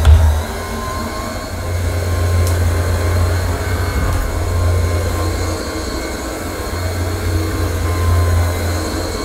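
AirCraft PowerGlide cordless hard floor cleaner running, its two spinning microfibre pads scrubbing ceramic tiles: a steady low motor hum that swells and eases as it is pushed about. A short low thump comes at the very start.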